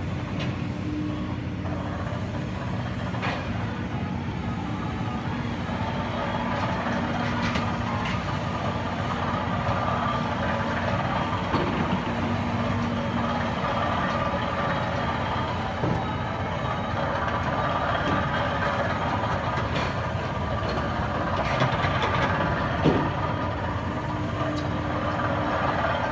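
Heavy diesel machinery of large rotary foundation drilling rigs running steadily at work, with a few scattered knocks.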